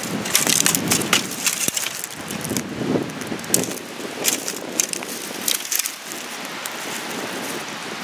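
Footsteps crunching and rustling through dry fallen leaves and twigs: irregular crackling crunches, busiest in the first half and thinning to a softer rustle after about six seconds.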